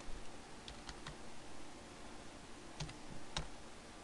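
Computer keyboard being typed on, a handful of separate keystrokes at uneven intervals.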